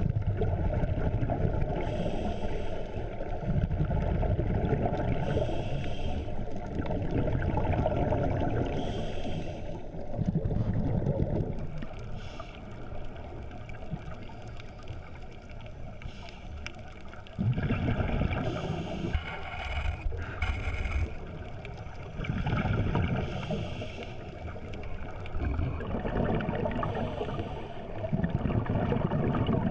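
Underwater sound of scuba breathing: a regulator's exhaled bubbles rumbling in stretches of a few seconds, with quieter gaps and short hisses between breaths.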